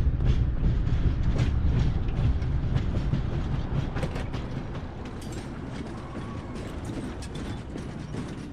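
Freight train wagons rolling along the track: a low rumble with repeated sharp metallic clanks and creaks, the whole sound fading over the second half.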